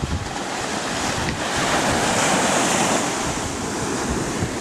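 Ocean surf breaking on the beach, a wave swelling to its loudest about two seconds in and then easing off, with wind buffeting the microphone.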